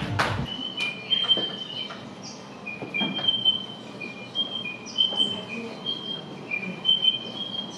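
Recorded birdsong played as a stage sound effect: short whistled notes that hop back and forth between two pitches, repeating irregularly. The last claps of applause die away in the first half second.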